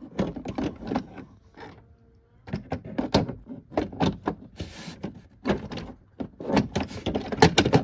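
Hard plastic interior trim panel being handled and lined up against the car body: a run of short plastic knocks, clicks and rattles, with a brief pause about two seconds in.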